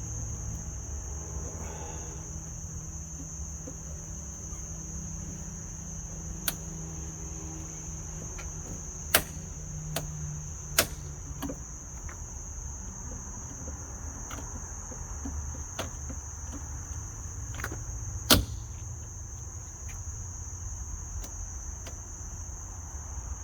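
Crickets trilling steadily over a low rumble, with a handful of sharp clicks and knocks, the loudest about nine and about eighteen seconds in.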